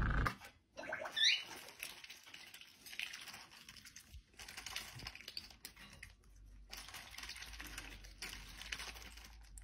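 Faint scattered taps and clicks from a white domestic duck's bill pecking and dabbling, with one short rising peep about a second in.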